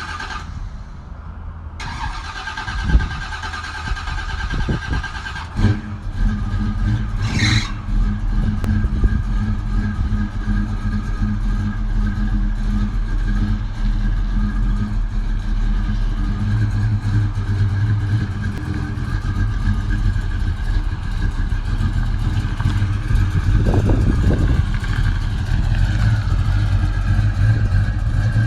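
Buick 455 big-block V8 firing up about six seconds in, then running at a steady idle.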